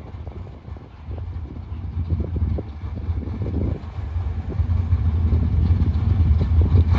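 Super Stock drag-racing cars idling, a low, uneven engine rumble that grows steadily louder.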